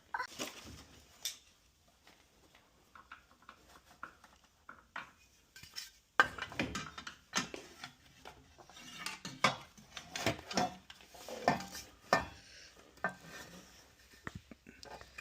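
Irregular light metallic clinks and knocks of hand tools and metal parts being handled, with a sharp click about six seconds in.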